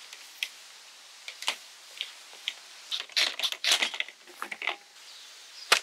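Shovel blade cutting into heavy loam: irregular crunching and scraping strokes, busiest in the middle, with one sharp click near the end.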